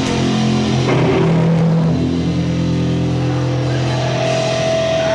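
Live rock band playing the opening of a song: electric guitars holding long, loud chords that change every second or two, with drums underneath.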